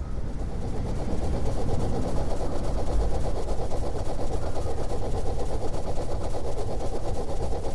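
A steady, rapid mechanical rattle, like a motor running.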